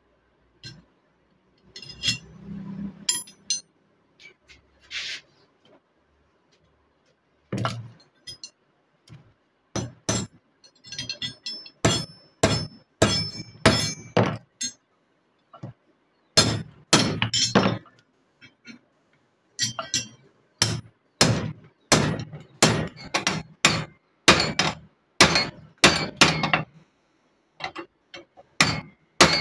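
Hammer striking steel blacksmith tongs: a run of sharp metal-on-metal blows with a short ring, coming more than once a second in the second half, as the tongs' pivot rivet is peened over. A few lighter clinks of the tongs being handled come first.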